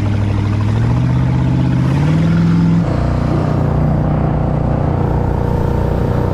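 1977 Spectra jet boat's carbureted, naturally aspirated 454 big-block Chevy V8 pulling under throttle, its note climbing in steps over the first few seconds. About three seconds in it settles into a steady, rougher run at speed, mixed with water and wind noise.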